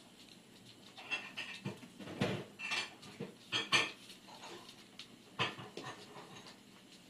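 Cats play-fighting on a wooden floor: irregular scuffles and bumps of bodies and paws, in a flurry of short bursts from about one to four seconds in and once more near five and a half seconds.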